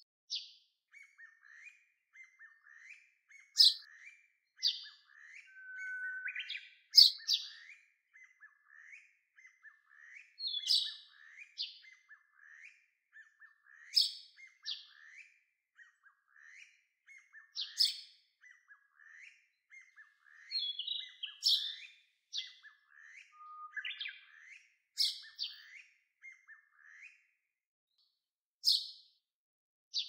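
Birds chirping: a steady run of short rising chirps about twice a second, with a louder, sharp call about every three to four seconds.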